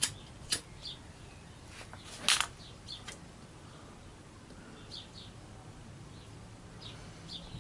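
Small birds chirping in short bursts in the background, with a few sharp clicks and one louder knock about two seconds in.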